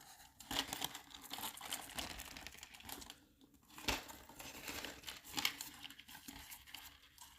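Packaging crinkling and rustling as the advent calendar box is handled, with scattered clicks and a sharp knock about four seconds in.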